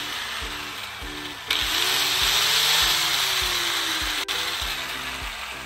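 Angle grinder with a flap disc grinding metal, a steady high hiss that gets louder about a second and a half in as the disc bites. Background music with a steady beat runs underneath.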